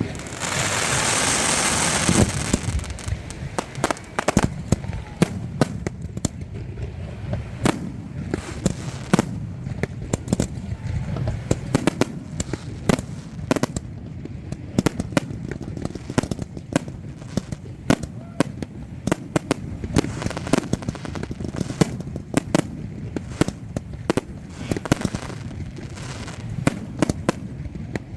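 Fireworks display: a loud hiss for about the first two seconds, then a dense, irregular run of sharp bangs and pops, several a second.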